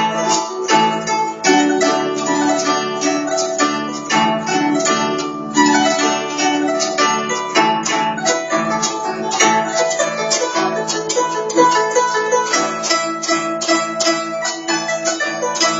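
Guzheng played with finger picks: a continuous stream of quick plucked notes, with lower strings ringing on beneath them.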